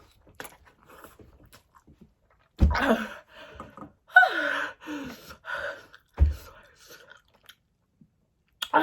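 A person chewing a mouthful of spicy noodles with faint wet clicks, then letting out loud wordless, falling moans and gasps from the burn, with two dull thumps among them.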